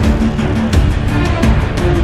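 Background music with regular drum hits and held notes.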